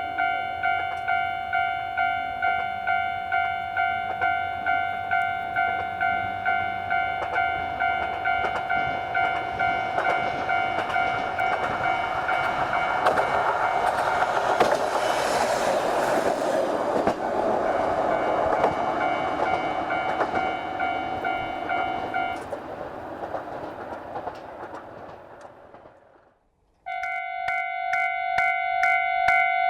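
Japanese level-crossing warning bell ringing in a steady run of rapid electronic dings while a Hojo Railway diesel railcar passes, its rumble and wheel noise swelling through the middle. The bell stops near the end as the train noise dies away, and after a moment of silence another crossing's bell starts ringing abruptly.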